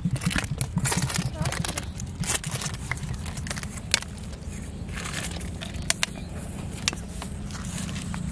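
Indistinct talking, with a steady low rumble underneath and a few sharp clicks in the second half.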